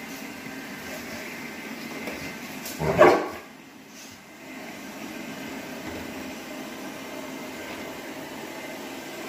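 Robot vacuum cleaner running with a steady hum while a large black-and-tan dog barks once, loudly, about three seconds in; the hum dips briefly just after the bark.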